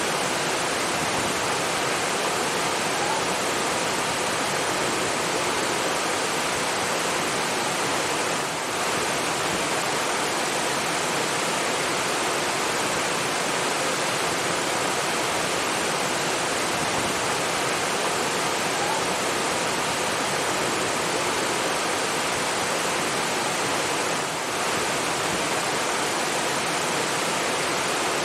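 Steady rushing water, an even continuous roar of falling or flowing water, dipping very briefly twice.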